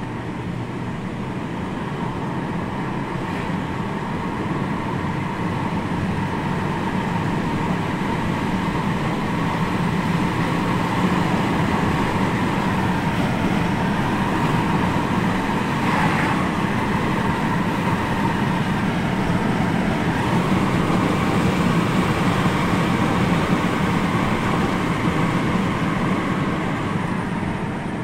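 Steady engine and road noise of a car being driven, heard from inside the cabin, slowly growing louder over the first several seconds as the car picks up speed.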